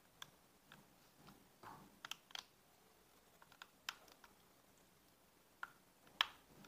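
Faint, scattered clicks and taps of a screwdriver working a small screw on the bail arm of an Exory BG-5050 spinning reel, with light knocks as the reel is handled; the loudest click comes near the end.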